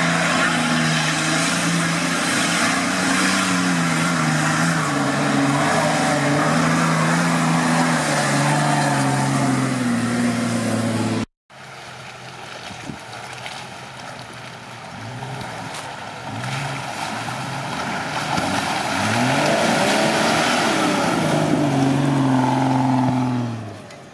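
Nissan Patrol 4x4 engine working hard through deep mud, its revs wavering up and down under load. After a sudden cut, a quieter off-road engine revs in several rising and falling sweeps, growing louder in the second half.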